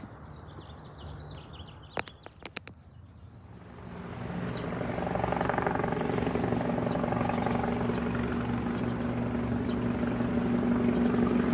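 Helicopter flying nearby: a steady pitched drone that swells in about four seconds in and then holds.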